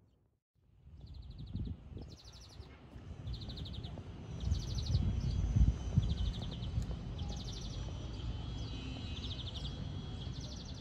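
Small birds calling with short, rapid trills, repeated about once a second, over an uneven low rumble that swells about four to six seconds in.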